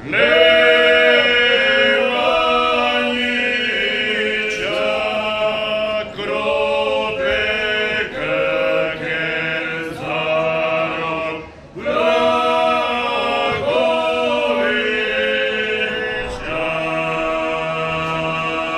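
Male vocal group singing a cappella in close harmony, held phrases of a few seconds separated by brief breaks for breath.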